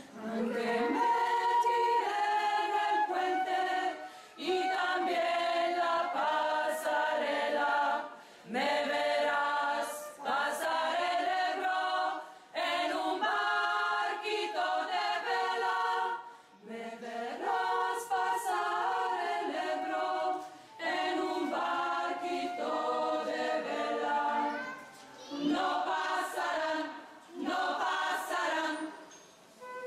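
A choir singing a cappella, in phrases of about four seconds with short breaks between them.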